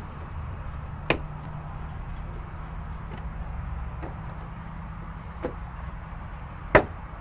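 Sharp clicks and knocks of a plastic headlight housing being pushed and snapped onto its mounts: a loud one about a second in, a fainter one later, and the loudest near the end. A steady low rumble runs underneath.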